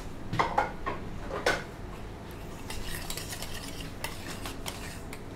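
Metal kitchen utensils and a pan clinking and knocking against a steel counter and chopping board: a handful of sharp knocks in the first second and a half, then lighter clatter.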